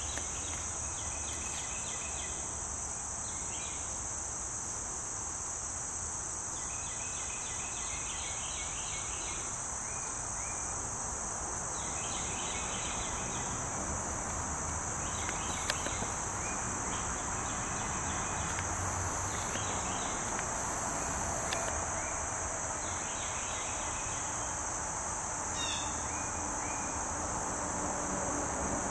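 Insects calling: a steady high-pitched trill, with repeated bursts of lower pulsed chirps every few seconds.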